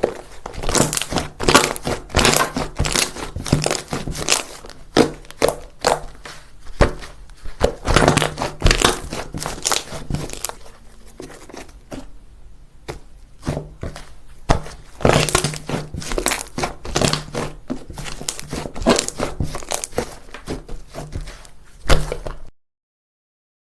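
Crunchy slime being squeezed and pressed by hand, giving runs of crackling and popping clicks. The sound cuts off abruptly about a second before the end.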